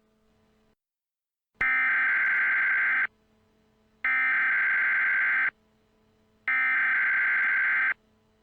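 Emergency Alert System SAME header: three bursts of buzzing data tones, each about a second and a half long, with a faint low hum in the gaps. These bursts open an emergency alert broadcast.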